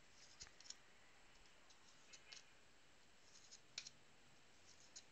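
Faint clicks and ticks of football trading cards being slid one by one off a hand-held stack, about half a dozen in all, the sharpest a little before four seconds in.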